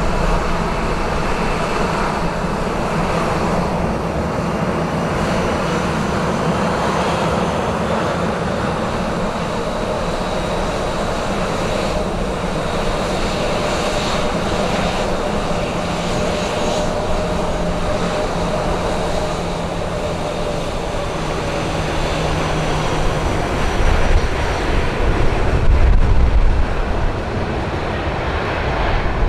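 Jet airliner engines running with a steady rush and a faint whine, a deep rumble swelling near the end.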